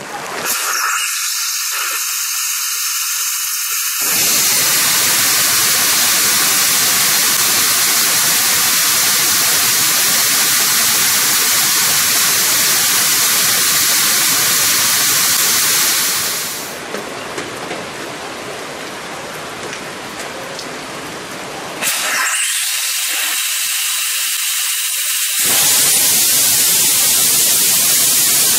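H2O2/plastic hybrid rocket engine (1,200 N class) hot-firing on a test stand. It opens with a high hiss for about four seconds, then gives a loud, steady rushing exhaust noise. The noise turns quieter past the middle, thins to a high hiss again for a few seconds, and then comes back at full strength.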